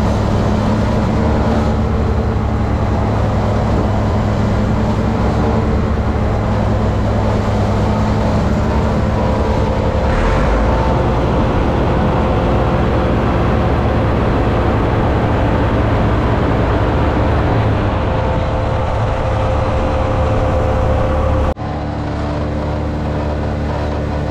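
Massey Ferguson tractor engines running steadily at the silo, driving the forage blower and the wagon unloader that fill it with chopped hay. The sound drops suddenly in level near the end.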